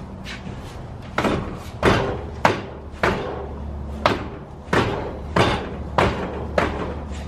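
A steady run of about nine sharp metallic knocks, one every half-second or so, each ringing briefly: repeated striking on metal parts during the engine removal.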